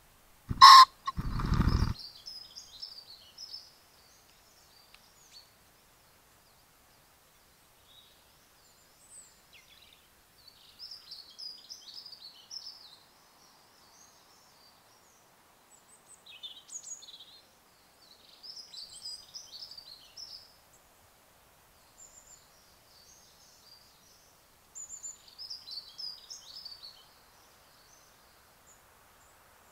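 A cock common pheasant gives its loud crow about half a second in, followed at once by a short burst of wing-whirring. After that, small songbirds sing in scattered high phrases.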